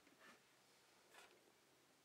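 Near silence: room tone, with two faint, brief scrapes about a second apart.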